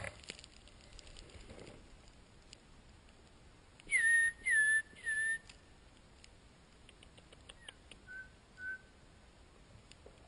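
Three short whistled notes in quick succession, each dipping slightly in pitch and then held briefly, followed a few seconds later by two fainter, shorter notes.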